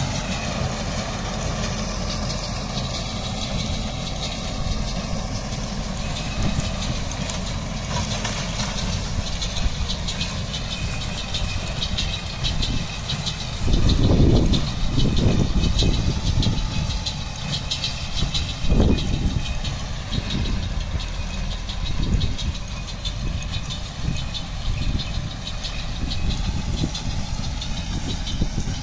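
Farm tractor engine running steadily while towing a small square baler that is picking up and baling straw, with a fast mechanical clatter from the baler. A few louder low rumbles come through around the middle.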